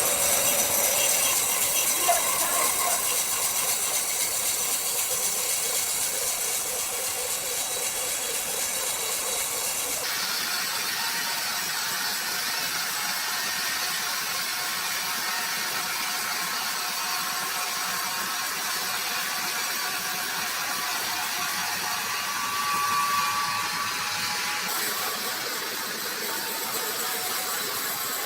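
Sawmill machinery running steadily with a loud hiss, the sound of a large saw working through timber. The sound changes abruptly about ten seconds in and again near the end.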